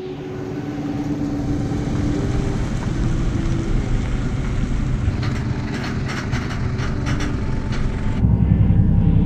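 An engine running steadily with a low hum, building in level and stepping up louder and heavier about eight seconds in.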